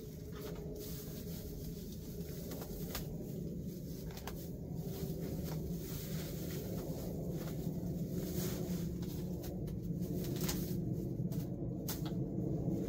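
Dry grass and weeds being pulled up by hand, with scattered crackles and rustles, over a steady low rumble.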